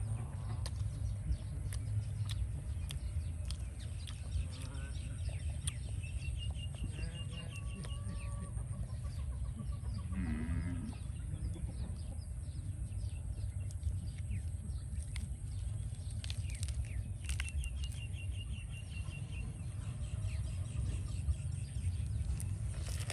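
Farmyard ambience: chickens clucking and small birds chirping now and then over a steady low rumble, with one longer animal call about ten seconds in. Fresh lettuce leaves being handled and bitten make small crisp clicks.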